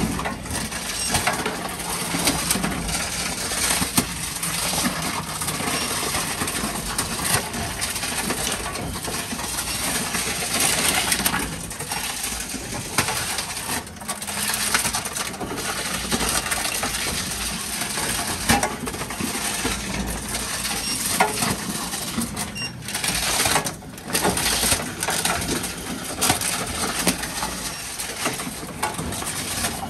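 Envipco ULTRA-48 reverse vending machine processing plastic bottles, with continuous clattering and crushing packed with sharp clicks as it works through a backlog of containers.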